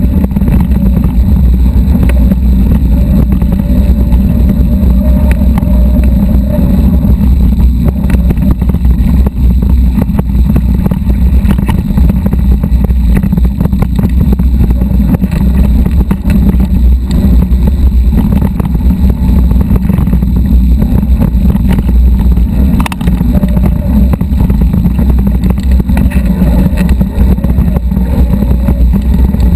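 Loud, steady low rumble of wind and trail vibration on a handlebar-mounted camera as an electric mountain bike rides over rocky dirt singletrack. Small rattles and knocks come from the bike jolting over stones, and a faint whine rises a few seconds in and again near the end.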